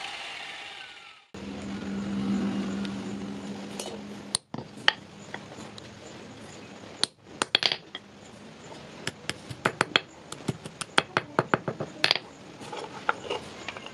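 Small hammer tapping a thin metal pin on a steel anvil: light, sharp metal-on-metal taps, a few scattered ones and then a quick run of taps over the last few seconds. A steady low machine hum runs for the first few seconds before the tapping.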